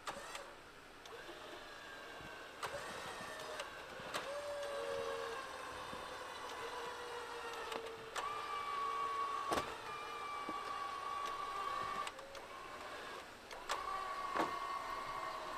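Electric recovery winch motor whining steadily as it reels in line, its pitch drifting slightly as the load changes, with a few sharp clicks.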